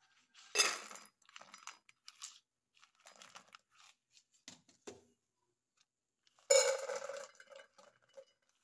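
Dry dog kibble poured from a scoop into stainless steel dog bowls, the pellets hitting the metal: one pour near the start and a second about three quarters through, with a few small clinks between.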